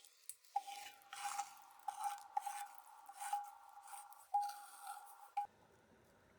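Utensil scraping and stirring in a pan, a few strokes a second, over a steady high whine; both stop abruptly about five seconds in.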